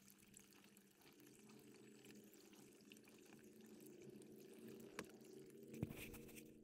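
Faint sound of a miniature Longhorn steer drinking from a stock tank, water lapping and dripping, with a couple of small clicks near the end.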